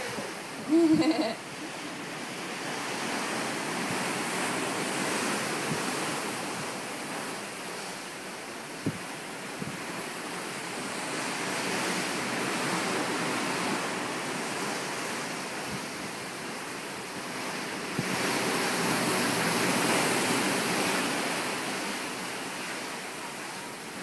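Open-ocean wave wash and wind, a steady rushing that swells and fades, with wind buffeting the microphone. A brief loud pitched sound about a second in and a single click a few seconds later.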